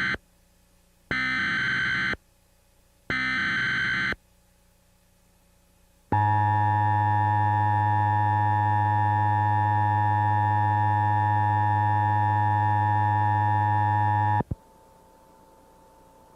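Emergency Alert System header: the tail of one SAME digital data burst and then two more, each about a second long with a second's gap between them. After a short pause comes the steady EAS attention tone, held about eight seconds, which cuts off with a click into a faint hum.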